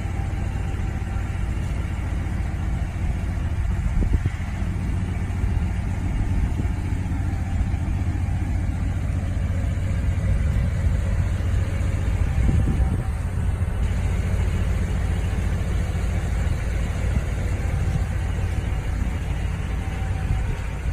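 Lifted square-body Chevy K5 Blazer's engine idling steadily with a low, even exhaust note.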